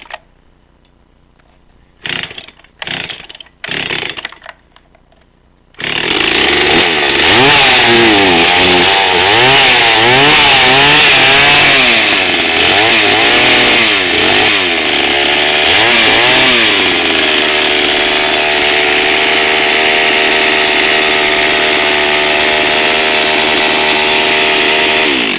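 Husqvarna Rancher 61 cc two-stroke chainsaw: three quick pulls on the recoil starter, then the engine catches and runs loudly. For about ten seconds its speed surges up and down unevenly, then it settles to a steady pitch and is cut off suddenly at the end. The owner suspects a fuel system fault.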